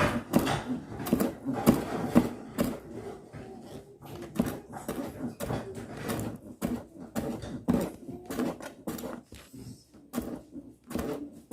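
Kitchen knife chopping green onions on a cutting board: a run of short, sharp, uneven knocks at about two a second.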